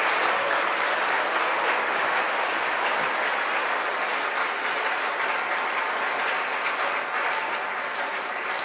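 A large audience applauding, many hands clapping steadily and tapering off a little near the end.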